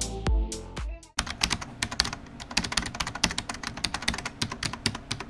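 Electronic dance music with a steady beat cuts off about a second in, followed by a fast, irregular run of computer-keyboard typing clicks, an end-card sound effect.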